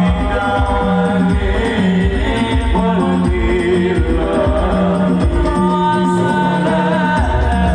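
Islamic devotional singing (sholawat): a lead voice sings a wavering, ornamented melody over a steady beat of low drum strokes, all amplified through a stage PA.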